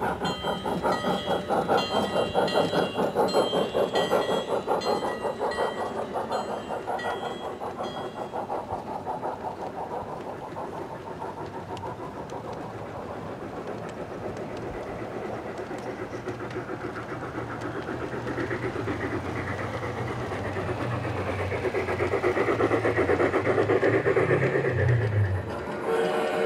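G-scale model freight train rolling past on garden-railroad track, its wheels clicking rapidly and evenly over the rail joints, loudest in the first several seconds. A low hum grows louder through the second half and rises briefly just before it stops near the end.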